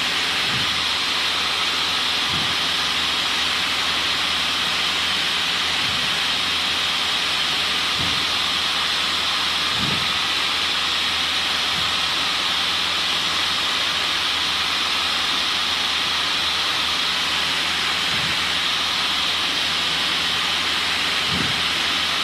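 Cessna 152 cabin noise in cruise flight: an even, steady hiss from the running engine and the airflow.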